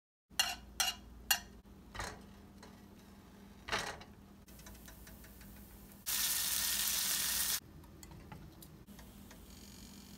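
A butter knife clinking against a nonstick frying pan several times. Then butter sizzling in the hot pan as bagel halves toast, with a louder stretch of sizzling for about a second and a half just past the middle.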